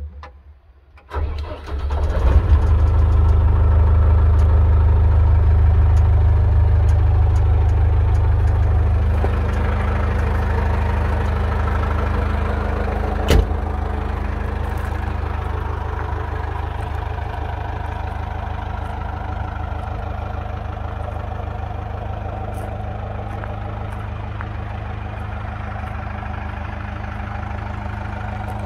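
Manitou MLT 626 telehandler's diesel engine starting: a short crank about a second in, catching almost at once, then settling into a steady idle that slowly gets quieter. One sharp click near the middle.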